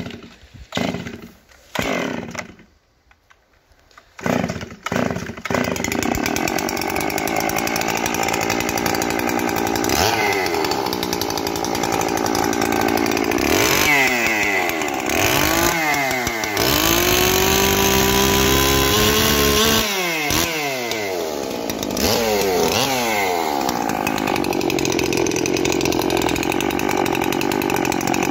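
Zomax ZM-6010 59 cc two-stroke chainsaw starting. It sputters briefly a few times, goes quiet for a moment, then catches about five seconds in and keeps running. From about ten seconds in it is revved up and down repeatedly, held at high revs for a couple of seconds midway, then dropped back and revved again.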